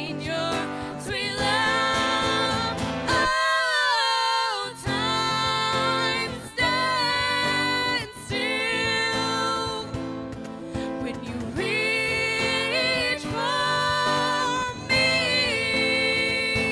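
Live acoustic worship song: voices singing long held notes over a strummed acoustic guitar and a cajón keeping the beat.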